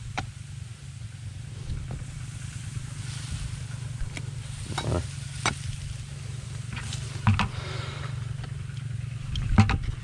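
Hand scraping and breaking clods of dry, cracked soil in a dug hole: scattered crunches and knocks, the loudest about seven and nine and a half seconds in, over a steady low rumble.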